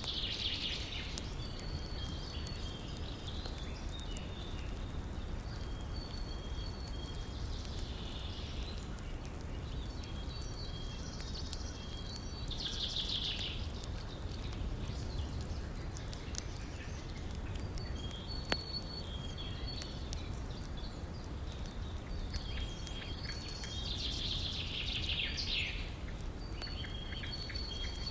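Steady low rush of a river, with high chirping calls repeating over it and a louder high trill every several seconds. A few sharp pops from the campfire are mixed in.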